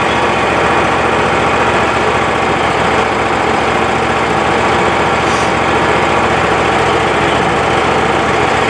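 Kohler Command Pro 25 hp V-twin engine on a Wood-Mizer LT35 sawmill running steadily at idle, warming up before an oil change.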